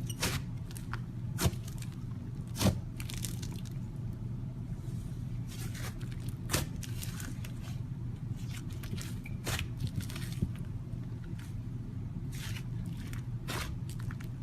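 Slime being squished and poked by hands, with irregular sharp sticky pops and clicks, a few louder ones in the first three seconds, over a steady low hum.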